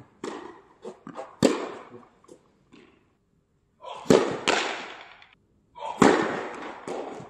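Tennis rally: a series of sharp racket-on-ball hits and ball bounces, each trailing off in an echo.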